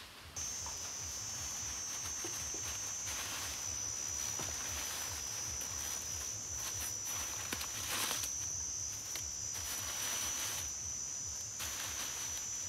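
Dry grass-leaf thatch rustling in swells as handfuls of iluk leaves are pushed and tucked into a hut roof. Under it, a steady high-pitched insect drone.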